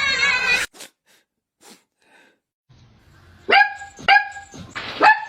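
A dog barking: three short, high barks in quick succession about halfway through, after a near-silent pause. Music cuts off near the start.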